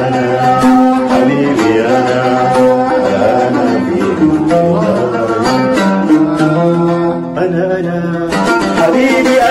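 An oud playing an instrumental melody of quickly picked notes.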